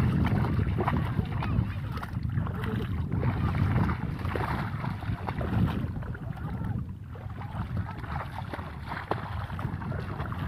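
Splashing and sloshing of shallow water as a bamboo polo fish trap is pushed down into a flooded paddy and feet wade through it, with wind rumbling on the microphone throughout.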